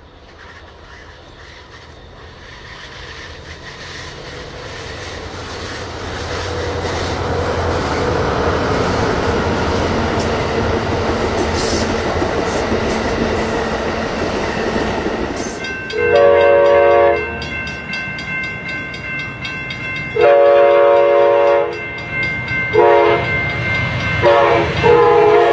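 Diesel-hauled Amtrak California bilevel passenger train approaching, its engine rumble and wheel noise growing steadily louder. From about two-thirds of the way through, the locomotive's air horn sounds several chord blasts: two long ones, a short one, then a long one that drops slightly in pitch, the pattern of a grade-crossing warning.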